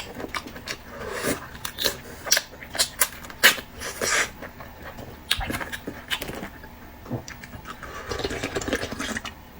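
Close-miked eating sounds: wet chewing and lip smacking, with irregular sharp clicks and smacks several times a second.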